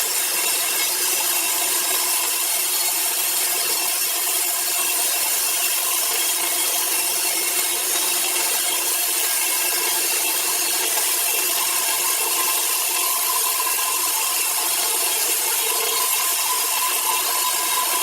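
Machine saw cutting steadily through a large piece of timber, a continuous hissing saw noise with faint steady whining tones and no breaks or strokes.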